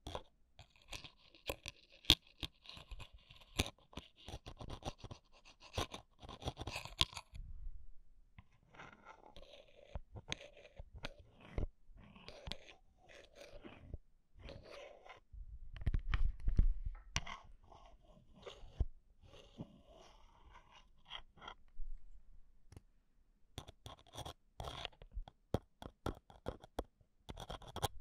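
A metal ear pick scraping and poking inside the microphone capsule of a Zoom handheld recorder, making close, crackly scratches and quick clicks in uneven runs. There is a short lull about a third of the way in and a louder low rumble near the middle.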